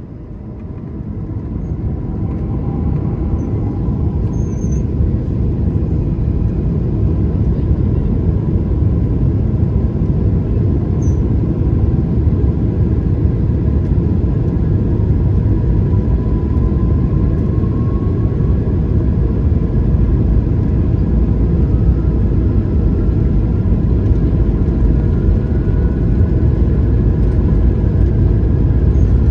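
An aircraft taking off: a loud, deep engine rumble builds over the first several seconds and then holds steady, while a faint whine slowly rises in pitch as the engines run at takeoff power.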